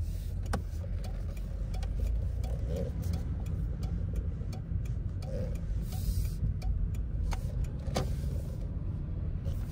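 Car driving, heard from inside the cabin: a steady low engine and road rumble, with a couple of sharp clicks.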